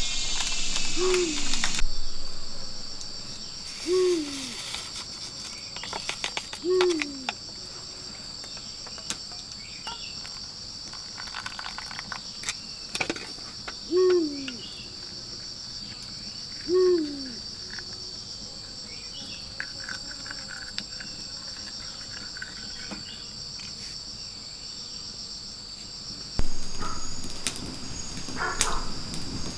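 A steady, shrill chorus of insects such as crickets or cicadas. Over it comes a short, falling, low hoot, five times in the first half, about three seconds apart. Scattered clicks and knocks are heard, busier near the end.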